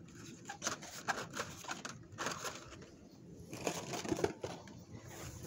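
Blister-carded die-cast toy cars being handled and shuffled in a cardboard shipping case: irregular plastic crinkles, clicks and cardboard rustling, busiest about a second in and again near four seconds.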